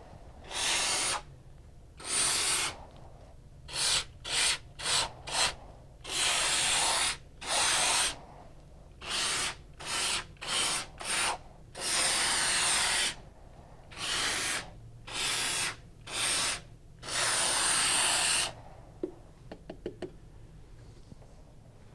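Two-component spray foam gun from a Froth-Pak kit hissing in short bursts as the trigger is pulled and released, about eighteen sprays from a fraction of a second to about a second and a half long, putting expanding insulation foam into a wall cavity. A few faint clicks near the end.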